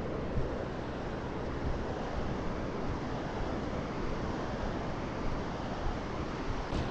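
Ocean surf washing onto a flat sandy beach in a steady wash, mixed with wind rumbling on the microphone.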